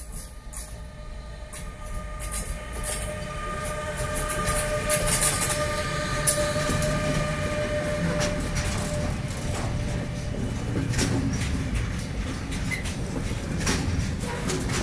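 Bombardier TRAXX class 186 electric locomotive hauling an intermodal freight train slowly away from a stop, its steady whine growing louder as it passes. The wagons then roll by with repeated wheel clicks over the rail joints and a low rumble.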